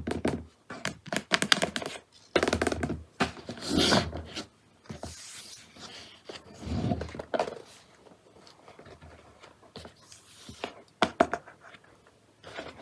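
A keyboard's packaging being handled and opened by hand: irregular rustling and scraping with short clicks and a few dull thuds, quieter for a few seconds near the end.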